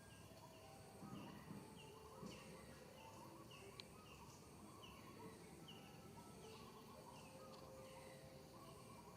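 Faint bird calls: a short falling chirp repeated about twice a second, with softer warbling trills beneath.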